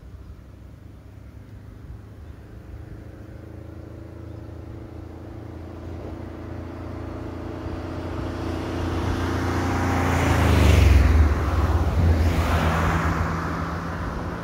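Engine of a small light truck approaching on an asphalt road and passing close by, growing steadily louder to a peak about ten to eleven seconds in, with tyre noise; a car passes a moment later and the sound fades.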